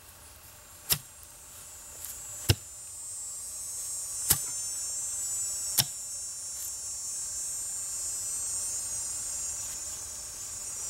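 An axe head being tapped down onto a new hickory handle in a trial fit: four sharp, separate knocks spaced a second or two apart, seating the head so that it marks the high spots still to be carved away. A steady high buzz builds in the background.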